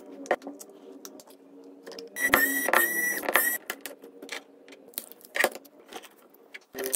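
Small plastic and metal clicks and taps as an Oppo F5 smartphone is taken apart, its frame lifted and metal shields pried off the circuit board. A louder squeaky, scraping stretch runs from about two seconds in to about three and a half.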